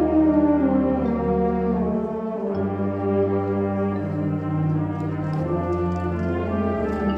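High school symphonic band playing, brass to the fore, in sustained chords over long held bass notes that change step by step.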